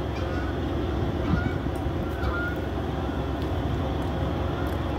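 Diesel locomotives of a standing Amtrak passenger train idling: a steady low rumble with a faint high whine over it.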